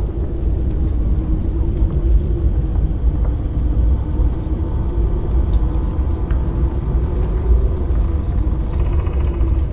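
Haunted-house ambience: a steady deep rumble under a low droning tone that wavers slightly in pitch, with faint higher tones and a few soft ticks.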